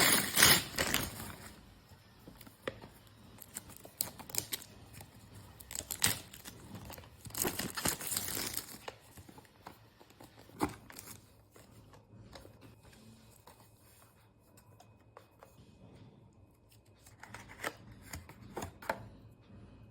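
Smartwatch packaging being opened by hand: bursts of tearing and crinkling near the start and around the middle, then scattered clicks and taps of the box and its parts being handled.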